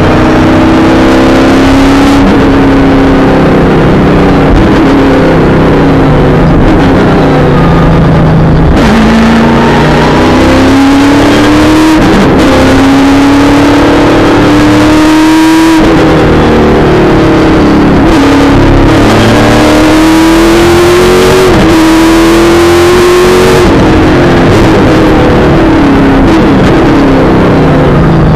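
V8 Supercar's V8 engine at racing speed, heard from inside the cockpit and very loud: the revs climb in repeated rising sweeps, each breaking off with a sharp drop in pitch at a gear change, then climbing again.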